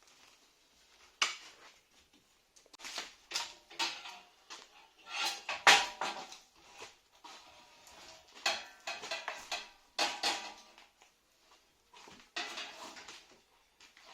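Irregular clinks, knocks and scraping of marble fireplace pieces being lifted and shifted, with the loudest knock about six seconds in.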